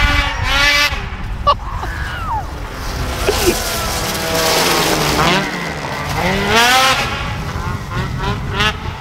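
2022 Ski-Doo Freeride 850's two-stroke twin engine through a GGB Mountain Can aftermarket exhaust, revving up and down repeatedly as the sled is ridden hard past and away. So loud, its pitch rising and falling several times with the throttle.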